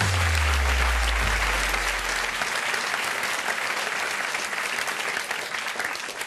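Audience applauding steadily, tapering off slightly near the end. A low bass note from a stage jingle fades out about two seconds in.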